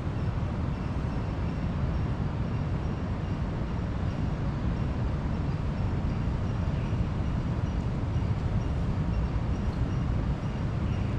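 Steady low rumble of ocean surf on the beach, with no distinct wave crashes standing out.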